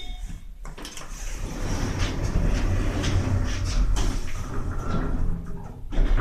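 PS Lift passenger elevator: the car's sliding doors close and the car sets off, with a steady low hum from the drive.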